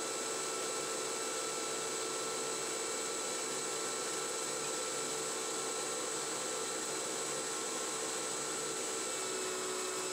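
9x20 benchtop CNC lathe spindle turning at 700 rpm while a carbide insert takes a .020" deep cut at 3 inches per minute feed. Steady machining noise with a constant whine from the drive.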